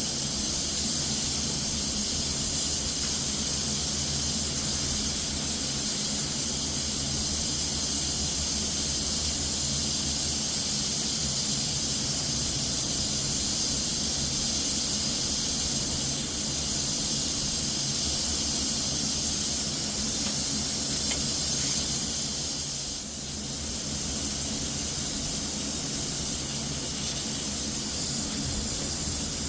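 Compressed-air spray gun hissing steadily as it sprays Cerakote coating, with a brief let-up about two-thirds of the way through.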